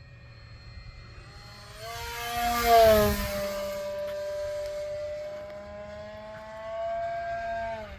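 Electric RC model plane (a 3D-printed Me 163 on an 1100 kV brushless motor) making a fast low pass: the motor and propeller whine swells about two seconds in and is loudest near three seconds with a rush of air, the pitch dropping as it goes by. A steady whine follows and falls in pitch just before the end.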